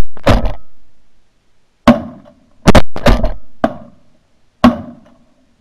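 Volley of shotgun shots from several hunters: about six loud blasts in quick, uneven succession, each trailing off over about half a second.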